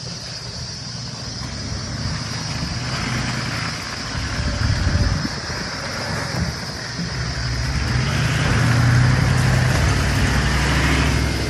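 Toyota LandCruiser 70 Series four-wheel drive crawling through a muddy, waterlogged track, its engine running steadily and getting louder as it comes close, about three-quarters of the way through. Tyres slosh through the mud and puddles.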